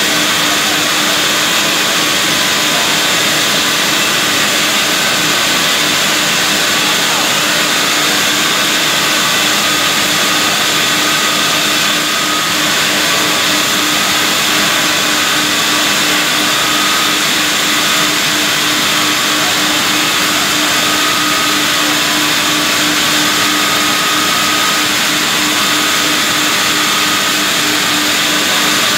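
Vertical band sawmill for round logs running and sawing a log fed on its carriage: a steady, loud machine noise with a constant hum.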